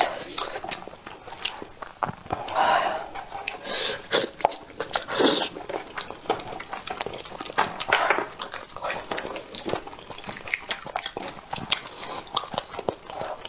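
Close-miked eating: a braised sheep's head being pulled apart by hand and the meat chewed, with many short clicks and a few longer noisy bursts.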